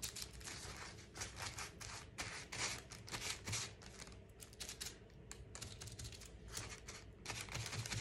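Quick, irregular light tapping and crinkling of aluminium foil and paper under the hand as paint is dabbed and picked up on a foil palette.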